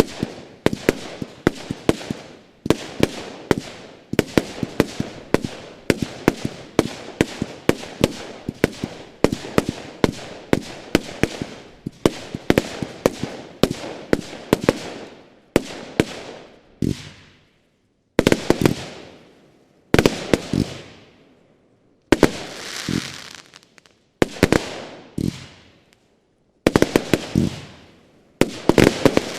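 Broeckhoff 'The Flying Dutchman' 70-shot, 25 mm consumer firework battery firing. Sharp shots follow one another several times a second for about 17 seconds. After a brief pause the battery fires in several quick salvos about two seconds apart, each trailing off into a hiss.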